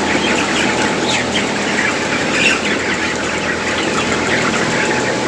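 Many 29-day-old broiler chickens clucking and calling together in a poultry shed, a dense continuous chatter over a steady mechanical hum.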